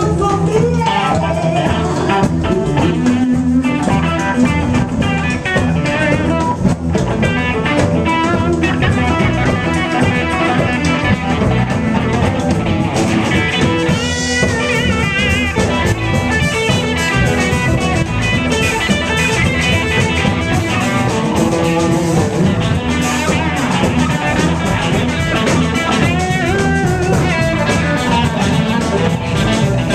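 Live rock band playing electric guitar over a drum kit, continuous and loud.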